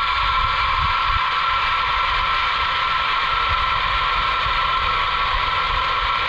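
Zipline trolley pulleys running fast along the steel cable, a steady high whine, with wind rumbling on the microphone.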